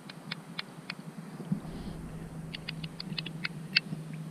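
Water dripping and lapping against a kayak hull: a quick, irregular ticking of small plinks.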